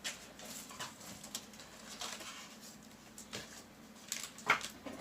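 Rustling and handling of a cardboard parcel and its packing as it is unpacked: scattered light rustles and clicks, with one sharper knock about four and a half seconds in.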